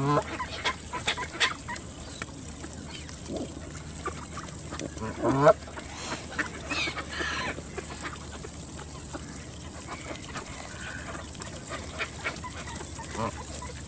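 Canada geese honking in short calls, the loudest about five seconds in, with higher bird calls and scattered sharp clicks around them.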